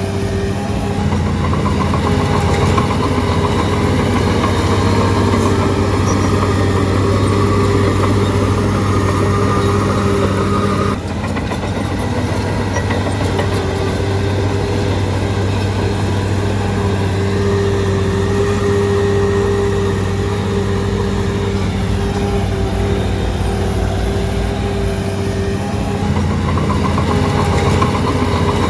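Shantui DH17C3 bulldozer's diesel engine running steadily, with a brief dip in level about eleven seconds in.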